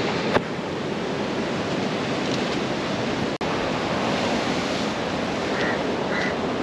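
Steady wash of ocean surf, with wind blowing on the microphone. A few short high chirps come about half a second apart near the end.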